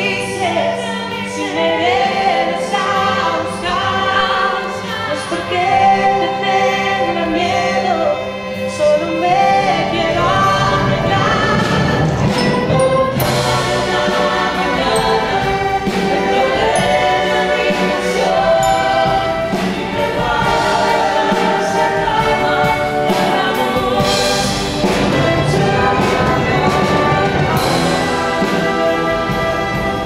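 Youth string orchestra and choir performing an orchestral arrangement of an Argentine rock song, with voices singing a melody over violins and cellos. The sound grows fuller about ten seconds in.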